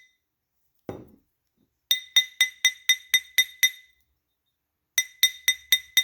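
Chasing hammer striking a wire ring on a steel ring mandrel in quick runs of about four bright, ringing metal taps a second, texturing the ring to stretch it up in size. A single dull thud comes about a second in.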